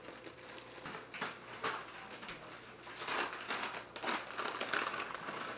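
Plastic food packet crinkling and rustling as it is handled and opened, in irregular bursts that are busiest in the second half.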